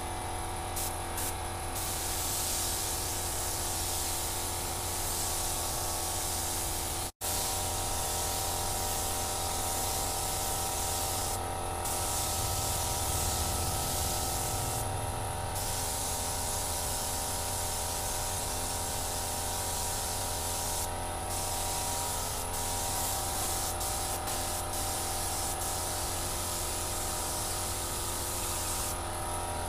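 Air spray gun hissing steadily as it lays the second coat of clear over a stickered motorcycle fuel tank, with a steady low hum underneath. The hiss brightens in short stretches as the passes go on and drops out briefly about seven seconds in.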